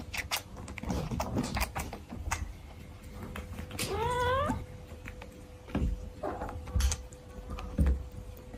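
Cats sucking milk from a small pet nursing bottle, with scattered wet sucking and smacking clicks, and one cat giving a short meow that rises in pitch about four seconds in. Three dull thumps come in the second half, under a faint steady hum.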